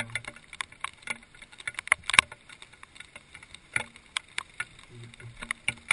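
Raindrops tapping irregularly on a GoPro camera's housing, several sharp taps a second at uneven spacing.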